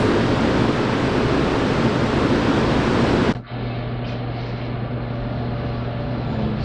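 Steady rushing noise, like cooling fans in a cold-storage room, that cuts off abruptly about three and a half seconds in, leaving a quieter steady low hum. No knock is plainly heard.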